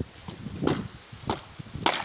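A series of sharp knocks, about five in two seconds and irregularly spaced, like hand tools striking on a building site.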